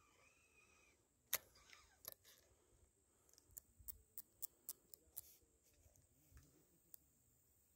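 Near silence broken by small mechanical clicks from a baitcasting fishing reel being handled: one sharp click about a second in, then a short run of faint clicks at about three a second.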